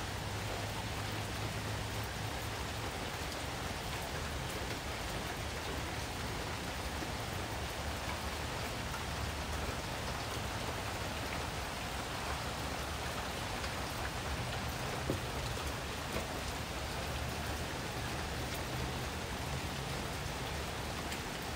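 Steady hiss-like noise with a faint low hum underneath, and one light click about fifteen seconds in.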